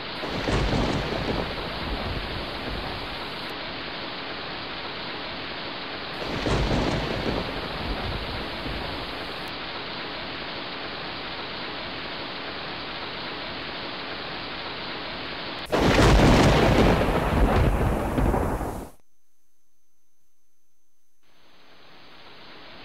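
Surf on a sandy beach: a steady wash of waves with two swells as waves break, then a louder, rumbling stretch about three-quarters through that cuts off suddenly, leaving a short lull before the wash fades back in.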